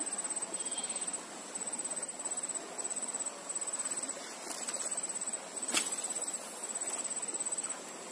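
Insects trilling high-pitched in rapid pulses, in bursts about a second long with short gaps between. Two sharp clicks cut in past the middle, the second the loudest sound.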